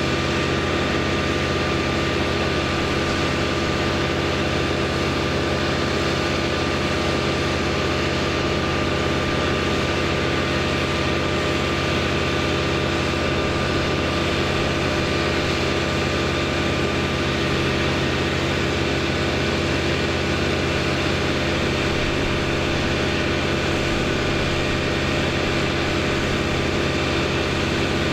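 An engine running steadily at one constant speed, its pitch never changing.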